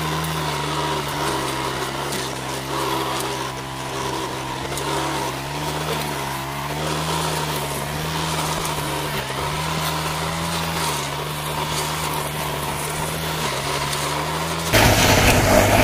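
Backpack brush cutter engine running steadily while cutting weeds, its pitch wavering gently up and down. Near the end the sound jumps suddenly louder and harsher.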